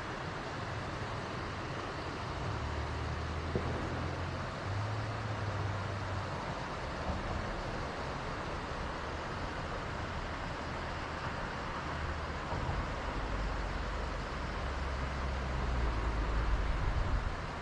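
Steady rush of a mountain river, with uneven low rumbling of wind on the microphone that swells a few seconds in and again near the end.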